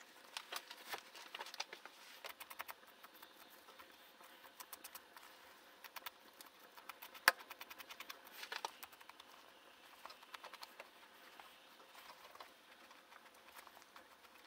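Faint, scattered small clicks and scratching from gloved hands working a skinned animal hide on a fleshing beam, with one sharper click about seven seconds in.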